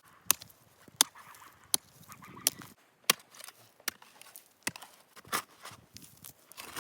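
About nine sharp knocks at an even pace, roughly one every three-quarters of a second: a hand tool striking repeatedly, as in chopping or hammering.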